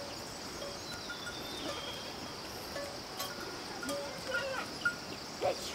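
A herd of domestic goats on the move, with a short goat bleat about five and a half seconds in and a few other brief calls over a steady high hiss.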